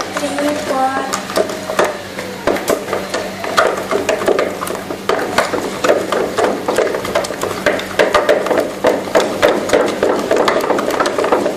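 Repeated hammer blows, a few a second, from building repair work next door.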